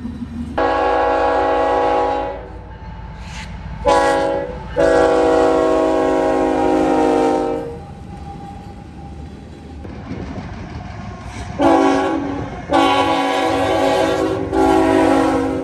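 GE ET44AC freight locomotives sounding their multi-chime air horns: a long blast, a short one and a longer one, then after a pause a further series of three blasts, each a steady chord of several notes. Underneath runs the steady rumble of the passing trains.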